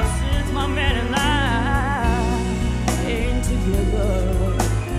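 Female singer performing a slow torch song live, holding a long note with wide vibrato, then moving into a lower phrase, over steady instrumental accompaniment.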